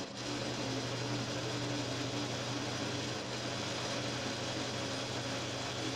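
Benchtop drill press running with a single-flute milling bit, side-milling a wood block as the plywood cross-slide table is cranked along; a steady motor hum. The press is vibrating a lot under the side load, which it is built for axial, not radial, forces to carry.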